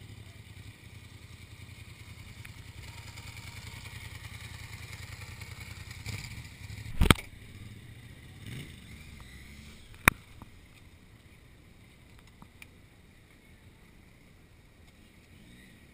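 Motorcycle engine running at low speed, growing louder over several seconds as it approaches. A loud knock about seven seconds in and a sharp click about three seconds later, then only a faint background.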